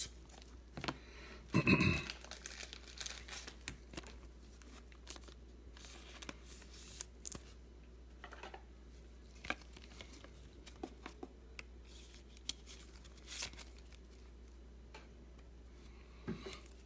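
Gloved hands handling trading cards: faint, scattered rustling and crinkling with a few light clicks, and one louder brief rustle about two seconds in.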